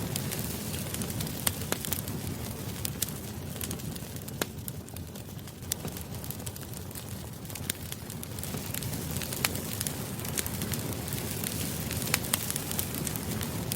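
Wood fire burning with a steady low rumble, dotted with frequent sharp crackles and pops at irregular moments.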